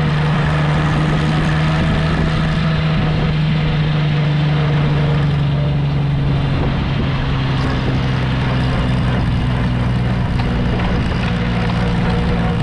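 Farm tractor engine running steadily under way, heard from the tractor's own seat, with a low, continuous exhaust note that sags slightly midway and comes back up near the end.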